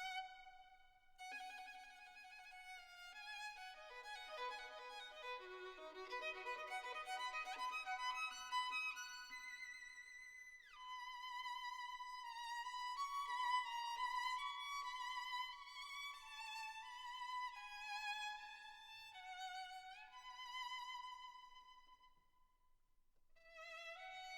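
Background music: a solo violin playing a melody with vibrato, with a downward slide about halfway through and a short lull near the end.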